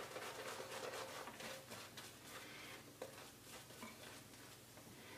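Semogue Owners Club boar-bristle shaving brush working lather on a face: faint, soft, quick brushing strokes, busier in the first few seconds and thinning out towards the end.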